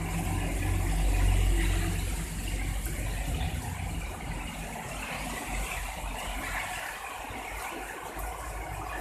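Heavy rain falling in strong wind, with gusts buffeting the microphone as a low rumble that swells about a second in and then eases.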